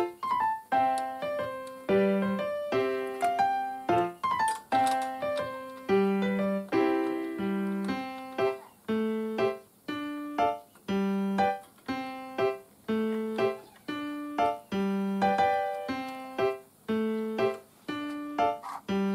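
Background music: a keyboard instrument playing a bouncy tune of short struck notes over repeating lower notes.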